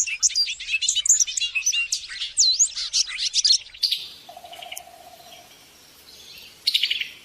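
Small birds chirping and twittering in quick, overlapping calls, dense for about four seconds, then thinning to a few scattered calls over a quiet background.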